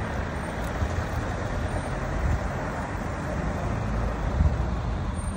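Cars driving past on a city street, their engines and tyres making a steady traffic noise.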